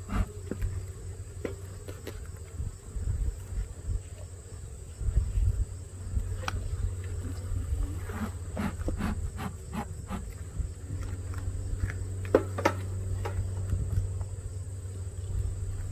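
Honeybees buzzing around an open Langstroth hive as a steady low hum, with scattered knocks and clicks as hive parts are handled.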